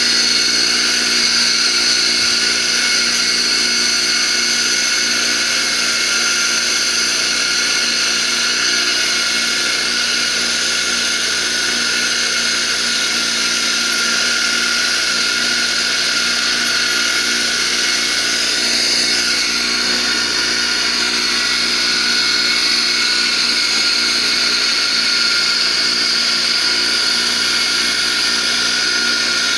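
Bench grinder running a wire wheel, with a painted metal door hinge held against it to strip the paint: a steady, high-pitched whir and scratch.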